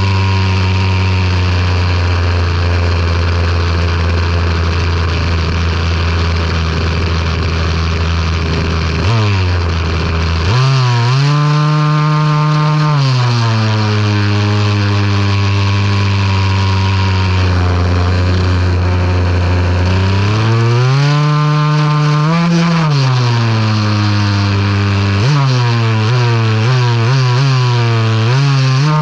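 RC buggy's motor running, heard from a camera mounted on the car: a steady hum for the first nine seconds or so, then the pitch rises and falls several times as the throttle is opened and closed.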